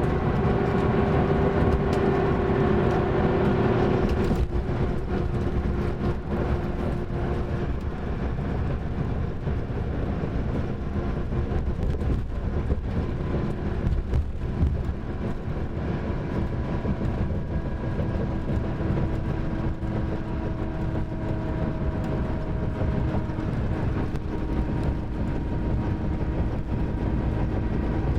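Mercedes-Benz OM-457LA inline-six turbodiesel of a double-decker coach running under way, a steady drone with whining tones over it. About four seconds in the pitch drops, then holds nearly steady with a slow downward glide.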